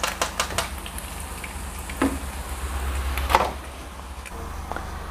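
Metal tongs and a slotted steel skimmer clinking and scraping as fried fish are lifted out of a wok of oil: a quick run of taps in the first second and one sharper knock just after three seconds, over a faint low hum.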